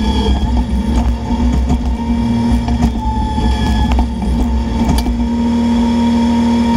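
Bobcat E10 mini excavator's diesel engine running steadily with its hydraulics working as it digs out a palm stump, with a few sharp knocks along the way.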